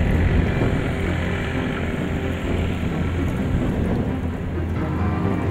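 A steady low rumble with a held deep tone under it; higher musical notes come in near the end.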